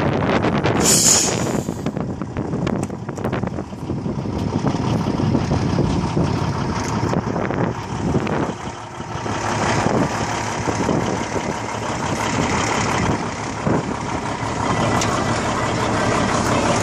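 Diesel engine of a 1998 Freightliner truck tractor idling steadily, with wind buffeting the microphone and a brief hiss about a second in.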